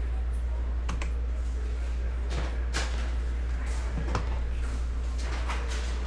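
A few scattered computer keyboard and mouse clicks, separate short taps spread over several seconds, over a steady low hum.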